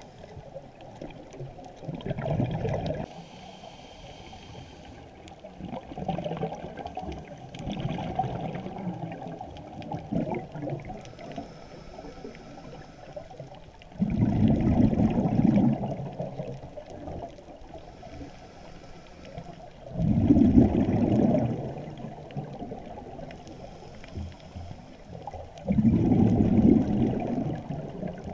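A scuba diver's exhaled breath bubbling out underwater, heard muffled through the camera housing: quieter bubbling in the first half, then three loud surges of bubbles about six seconds apart, one per breath.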